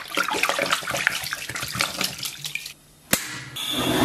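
Liquid pouring and splashing in a large stainless steel basin of water and pork intestines. Near the end a sharp click, then a gas stove burner runs with a steady hiss.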